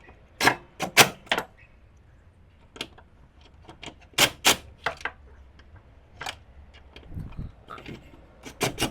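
A string of irregular sharp clicks and knocks, a dozen or so spread over several seconds, with a short low rumble near the end.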